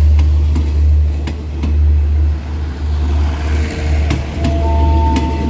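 Passenger train coaches rolling slowly past with a heavy low rumble and a few sharp clacks of wheels over rail joints. About four and a half seconds in, a steady two-tone brake squeal sets in as the train slows to stop at the station.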